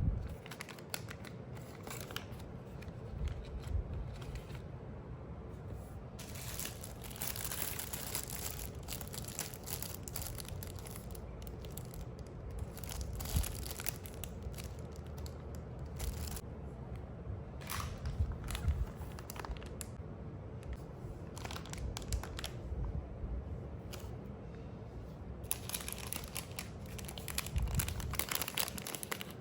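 Paper and plastic packaging being handled, crinkling and tearing, with scattered small taps and clicks. The crinkling is densest about a quarter of the way in and again near the end.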